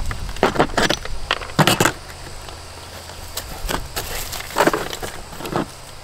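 Dried mortar being chipped and pried out of the ribbed underside of a plastic shower base with a hand tool: irregular sharp knocks and crunches. They come thick at first, ease off about two seconds in, then pick up again.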